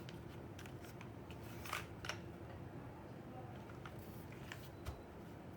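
Typing on a Fuji 65 mechanical keyboard with a carbon fibre plate, lubed Seal linear switches and CRP R3 keycaps: a run of keystrokes at an uneven pace of about three a second.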